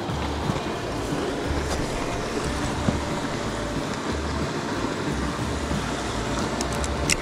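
Small mountain trout stream rushing steadily over stones. Low rumbles come and go on the microphone, and a few sharp clicks sound near the end.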